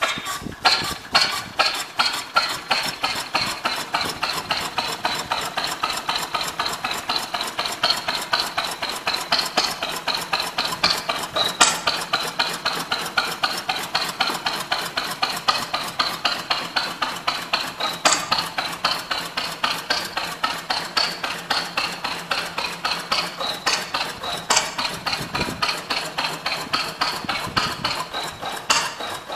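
Bruneau 12 hp single-cylinder stationary engine catching right after hand-cranking and running with a fast, even metallic clatter.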